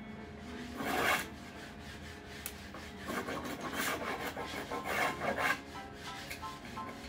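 Scraping strokes of a hand tool or abrasive worked over wood: one stroke about a second in, then a run of several quicker strokes from about three seconds in.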